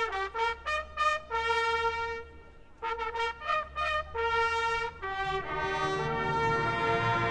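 Brass band playing a trumpet signal: quick groups of short repeated notes and a few brief held notes. About five seconds in, the fuller band comes in with a sustained chord that reaches down into the low brass.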